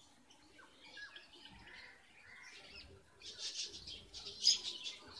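Red avadavats (strawberry finches) chirping: thin, high calls scattered at first, then a quick run of chirps in the last two seconds, loudest about four and a half seconds in.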